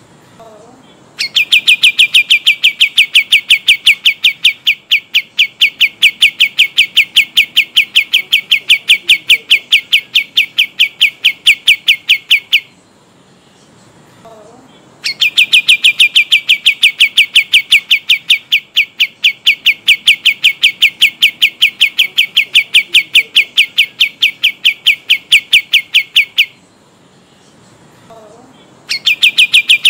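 Kapas tembak songbird giving its long rolling song: a fast trill of evenly repeated loud notes, sung in long runs of about eleven seconds with short pauses between them, the last run starting near the end.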